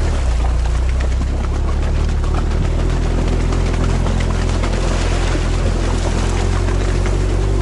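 An amphibious all-terrain vehicle's engine running steadily as the vehicle wades along a shallow stream, with water rushing and splashing around its big low-pressure tyres.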